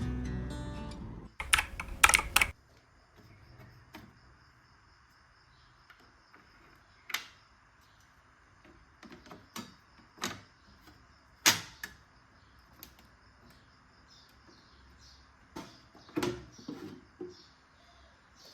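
Guitar music fading out, then a quick cluster of sharp clicks, then scattered single clicks and light knocks of small objects being handled.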